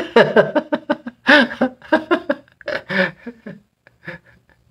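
A man laughing in a run of short bursts that trail off into quieter chuckles.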